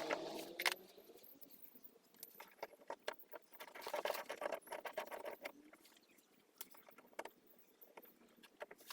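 Small irregular clicks and rattles of a socket wrench on an extension undoing 8mm bolts, with a denser run of clicking about four to five seconds in.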